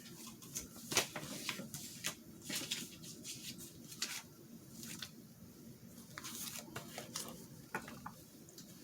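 Paper cutouts being handled and shuffled on a desk: light rustling with scattered small clicks and taps.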